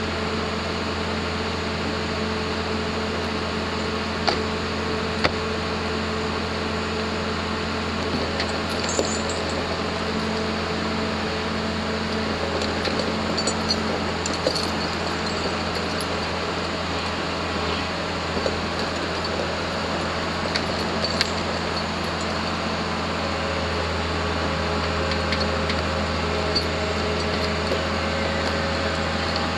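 Timberline 3530 delimber's diesel engine running steadily under load as the machine creeps onto a lowboy trailer, with scattered sharp metallic clinks and knocks.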